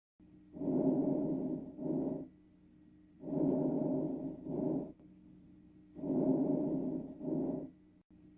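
Recorded lung breath sounds of the kind heard through a stethoscope: three slow breathing cycles, each a longer breathy phase followed by a shorter one, repeating about every two and a half seconds over a faint steady hum.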